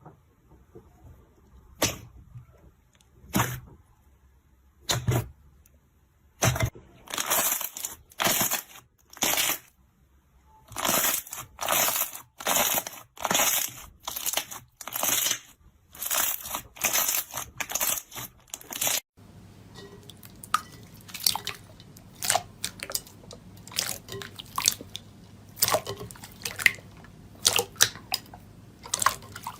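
Slime being worked by hand: a few sharp pops, then a run of crunchy squishes a little faster than one a second, then, over a faint steady hum, scattered crisp clicks and crackles.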